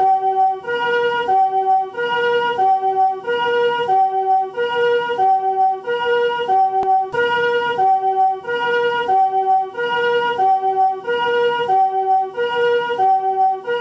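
Japanese ambulance's chord-type 'comfort' siren sounding its two-tone 'pee-poh' call, switching evenly between a higher and a lower tone about every two-thirds of a second, over and over.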